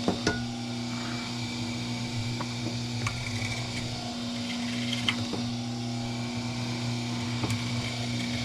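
Cable-stripping machine running as aluminum cable is fed through it: a steady hum with a few sharp clicks.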